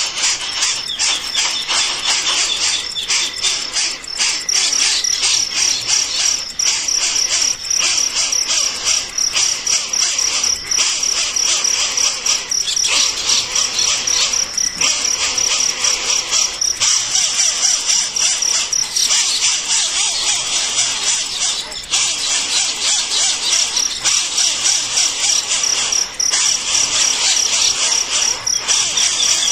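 Insects chirring in a dense, high-pitched, fast-pulsing drone that breaks off briefly every second or two.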